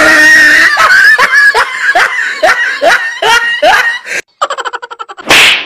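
Laughter: a run of ha-ha pulses, each falling in pitch, about two to three a second. Near the end comes a quick stuttering sound, then a brief loud rush of noise.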